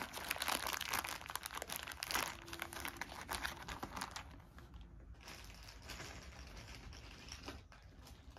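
Thin plastic packaging bag crinkling as it is handled, busy through the first four seconds or so, then fainter and sparser.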